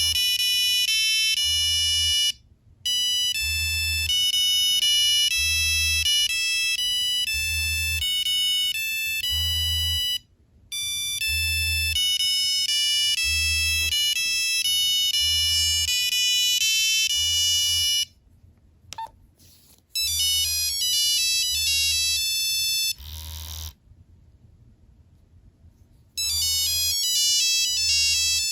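Nokia 3390 monophonic ringtones playing one after another from the phone's buzzer: bright, high beeping melodies, each lasting a few seconds, with short breaks between tunes. A faint low pulse comes about once a second underneath.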